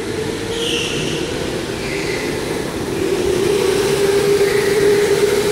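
Electric go-kart motors whining as a pack of karts comes past on an indoor track: one steady whine that gets louder about halfway through, over an even rush of noise.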